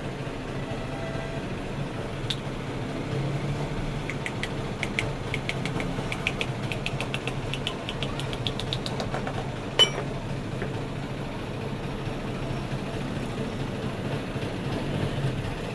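Quick, light metal taps on the body of a car's gas shock absorber held in a bench vise, about four a second for several seconds, then one sharp, harder strike. A steady low hum runs underneath.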